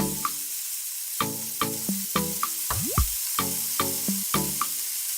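Background music of short, evenly repeating pitched notes over a steady high hiss like spraying or sizzling.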